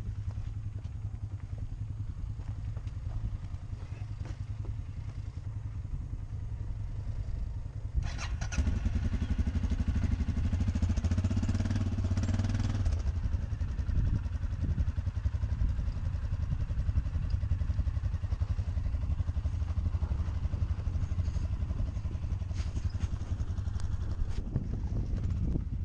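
ATV engines running at low speed as the quads crawl down a rocky dirt trail, a steady low rumble. About a third of the way in it grows louder and rougher for a few seconds, then settles back.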